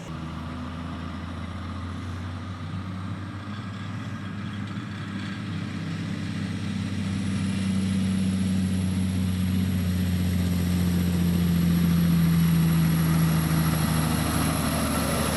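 Heavy diesel engine of a log truck or its loading crane running steadily. Its low hum grows louder about halfway through.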